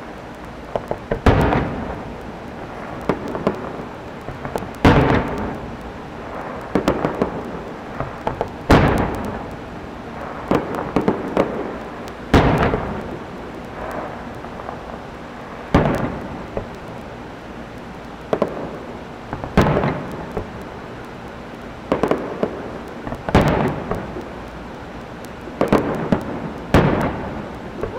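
Aerial fireworks shells bursting in a display: a loud bang about every three and a half to four seconds, with smaller bangs between, each trailing off in an echo.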